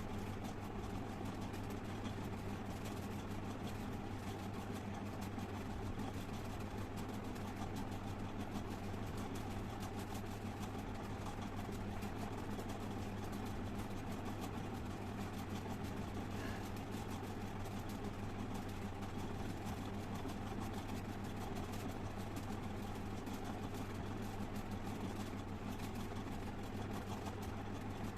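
Steady low droning hum that holds level without a break, with no sneezes or nose-blowing to be heard.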